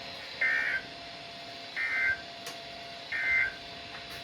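Emergency Alert System end-of-message signal: three short SAME digital data bursts, each a rapid two-tone chatter, about 1.3 seconds apart, marking the end of the alert. A faint steady tone sits underneath.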